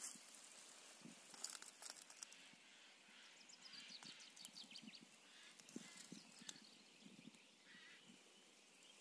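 Near silence: faint outdoor ambience with a few light clicks and rustles, and no engine running.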